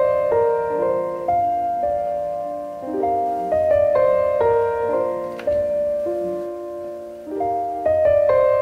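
Background music: a gentle piano melody, notes struck and left to ring in phrases.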